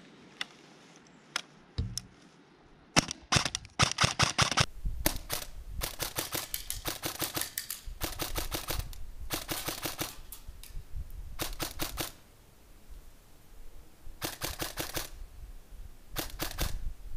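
A CYMA CM.041SD6 high-speed airsoft electric gun (MP5SD6 replica) firing a string of short full-auto bursts, each a fast, even run of clicks from the gearbox cycling, rated at about 25 shots a second out of the box. A few single clicks come first.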